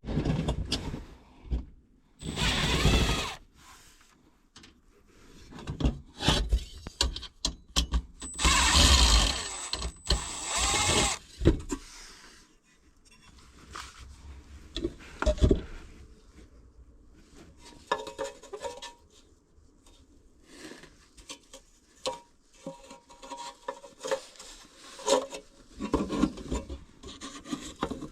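Cordless drill/driver running in bursts to remove and drive screws on a furnace inducer motor's adapter piece: a short run about two seconds in and a longer one of about three seconds later on, followed by scattered clicks and knocks of metal parts being handled.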